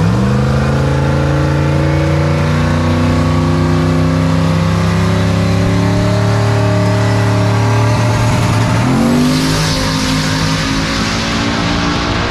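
Drag-race street car engine at full throttle, accelerating with its pitch climbing steadily. About nine seconds in the pitch drops suddenly and then climbs again, as at a gear change.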